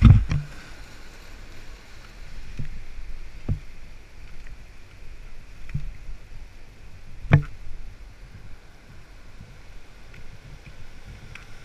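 Steady rush of fast water flowing below a dam, with a few knocks and thumps from a body-worn camera jostled while walking; the loudest knock comes about seven seconds in.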